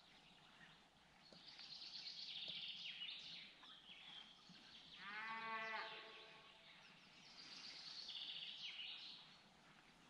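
A Highland cattle calf calls once about halfway through, a high, bleating moo lasting about a second and a half. Songbirds chirp and sing in the forest before and after it.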